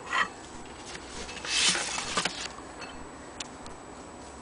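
Handling sounds: a short scrape at the start, a rustle lasting about a second from about one and a half seconds in, and a faint click near the end.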